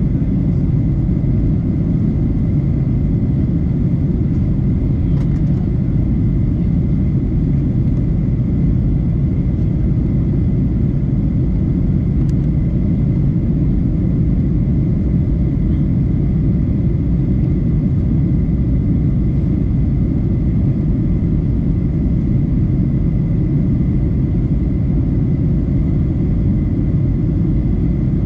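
Steady low rumble of engine and airflow noise inside the cabin of a Boeing 737-800 in descent, heard at a window seat behind the wing, with a faint steady high tone over it.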